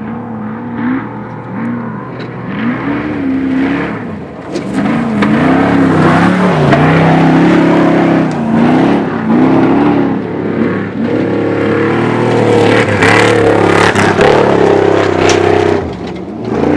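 Off-road race vehicle's engine revving hard as it races, its pitch climbing and dropping again and again, about once a second, and getting louder about four seconds in. Scattered sharp cracks come through over the engine.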